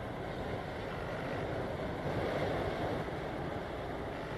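Wind rushing across the microphone with choppy water washing, a steady noise that swells briefly about two seconds in.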